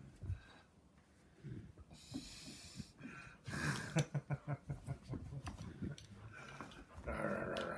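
Young Labrador retriever breathing hard in play, with a run of quick breaths at about five a second in the middle. Near the end comes a short scuffling noise.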